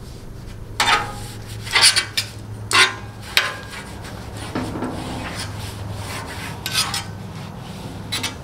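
Paper towel gripped in metal tongs rubbed across the hot metal griddle top, spreading seasoning in a series of short scraping strokes, with a softer, steadier wipe in the middle.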